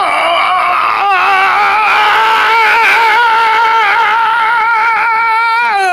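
A voice holding one long, slightly wavering "aaah" for several seconds, with a short break about a second in and a small drop in pitch near the end: the character crying out while being shaken by a power screwdriver that "feels like a jackhammer".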